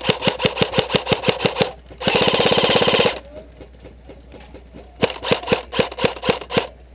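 Airsoft rifle firing: rapid single shots at about six a second for nearly two seconds, then a one-second full-auto burst, then after a short pause another run of rapid shots near the end.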